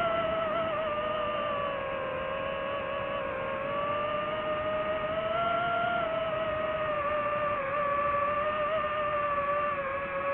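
DJI FPV drone's motors and propellers whining steadily, the pitch drifting slowly down and back up as the throttle changes.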